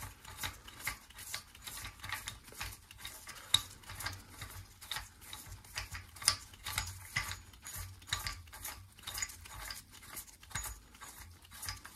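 Light metallic clicks and scraping, several a second, as the threaded rod of a harmonic balancer installer tool is unscrewed by hand from the crankshaft snout.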